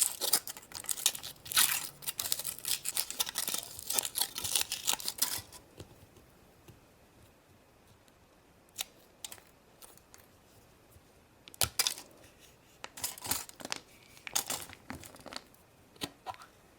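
Foil wrapper of a chocolate surprise egg being torn and crinkled in quick handfuls. After a quiet pause it is followed by scattered sharp clicks and short rustles of the egg being handled and opened.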